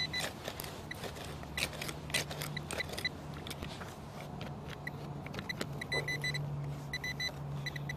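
Short high electronic beeps from metal-detecting gear, sounding in irregular runs as it passes over a buried metal target, which he expects is another mason jar lid. Clicks and scrapes of digging in dirt come between them, over a low steady hum.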